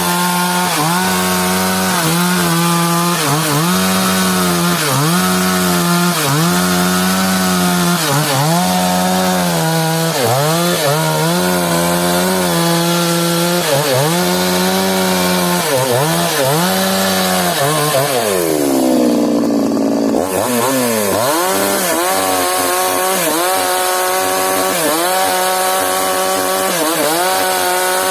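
Stihl chainsaw running at high revs and cutting mahogany wood, its engine pitch dipping and recovering over and over. About two-thirds through, the engine slows in a long fall in pitch, then revs back up and carries on.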